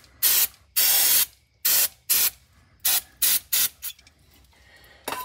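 Aerosol can of brake cleaner sprayed in about seven or eight short hissing bursts, the longest about half a second and the later ones shorter, cleaning out the pilot-bearing bore at the back of a crankshaft.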